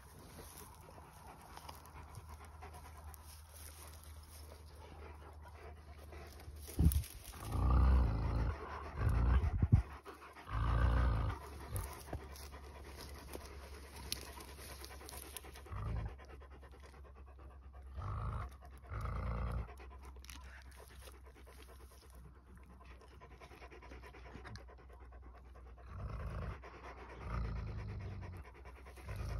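Akbash dogs breathing hard and sniffing, with one dog's nose pushed into a hole in the ground as it digs. The breathing comes in short bursts, loudest and closest together about a quarter to a third of the way in, with shorter bursts later and near the end.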